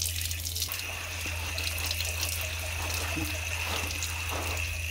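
Tap water running onto a dirty ayote squash as it is scrubbed by hand with a soapy sponge, with a steady low hum underneath.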